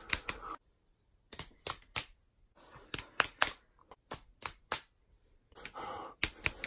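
Fists smacking into open palms in quick sets of three, about a third of a second apart, counting off rounds of rock paper scissors. A softer hazy stretch comes shortly before the last pair of smacks.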